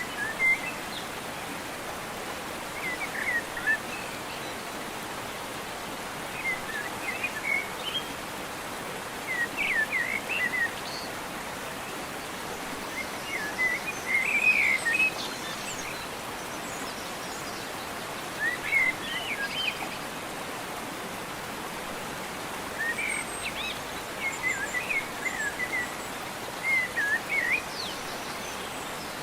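Birds singing in short, chirping phrases every few seconds over a steady background hiss.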